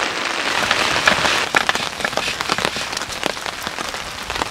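Heavy rain hammering down on a tarp shelter: a steady wash of rain with many separate drops striking close by.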